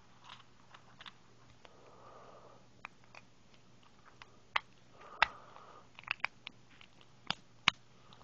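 Beyblade parts being fitted together by hand: sharp plastic clicks as pieces snap into place, over soft handling rustle. The loudest clicks come in a quick run in the second half.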